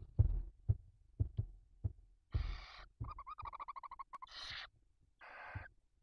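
Soft low thumps from birds moving on the nest, then barn owls calling: three short raspy hisses from about two seconds in, with a rapid pulsed chittering call between the first two.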